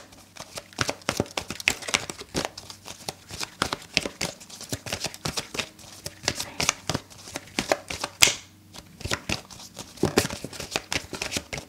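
A deck of tarot cards being shuffled by hand: a dense run of quick card clicks and flutters, with a longer swish about eight seconds in.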